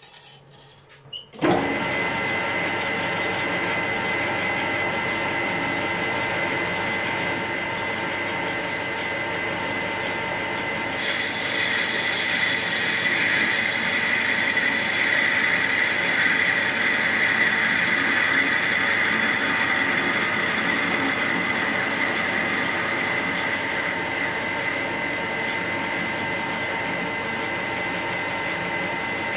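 Metal lathe starting up about a second and a half in, then running steadily with a constant whine as the tool takes a facing cut across a model engine's cylinder end plate held in the chuck. From about eleven seconds in the cut adds a rougher, louder noise, which eases back after about ten seconds.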